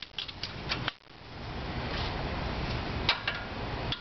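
A few sharp ratcheting clicks from a hand wrench working the brake caliper bolts, then a steady rushing noise that swells in about a second in and holds, with a couple more clicks near the end.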